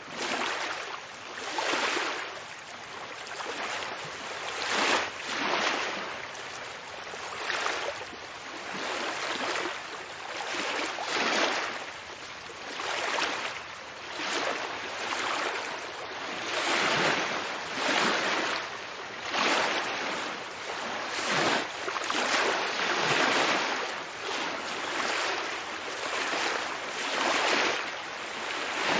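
Ocean waves washing in, a hissing surge that swells and falls every second or two.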